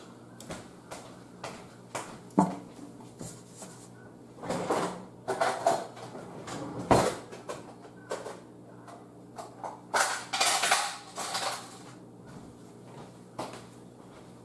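Clatter of kitchenware and utensils being handled: scattered knocks and clinks, with a sharp knock about seven seconds in and a longer spell of rattling around ten seconds in.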